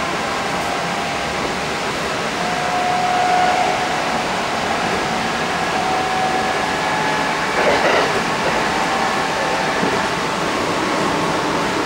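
Running noise inside a Kintetsu 1230 series commuter car moving at speed: a steady rumble of wheels on rail with a faint whine, and a brief clatter about eight seconds in.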